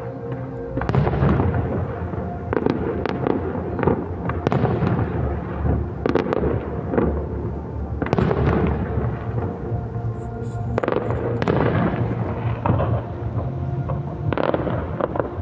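Fireworks going off in quick succession, with many sharp bangs starting about a second in. Show music with held tones plays underneath.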